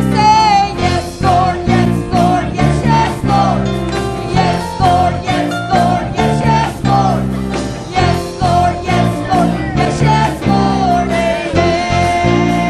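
Church worship band music: a bending melody line over sustained chords and a steady beat.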